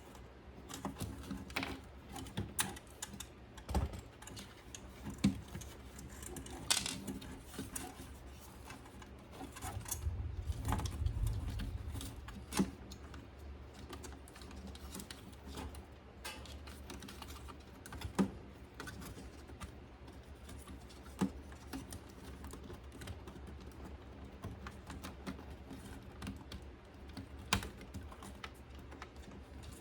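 Irregular light clicks and taps from hands and small tools working on small parts. A low rumble runs for a couple of seconds about ten seconds in.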